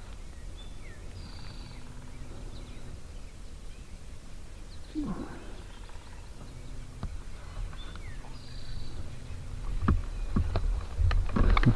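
Outdoor woodland ambience with a songbird repeating a short high phrase twice and one lower, falling call about halfway through. Near the end come a run of sharp knocks and rustles close by.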